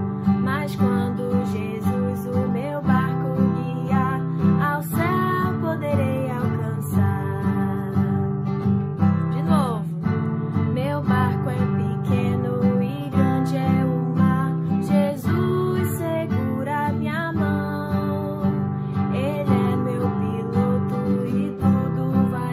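A woman singing a children's song in Portuguese to her own strummed acoustic guitar, in a steady rhythm.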